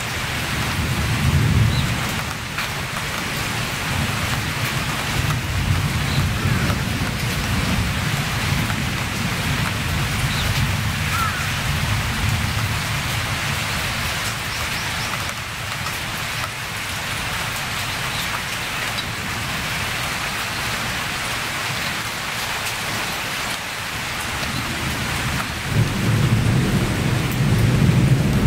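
Steady rain in a storm, falling on foliage and surfaces, with a low rumble under it. The rumble swells about a second in and again near the end.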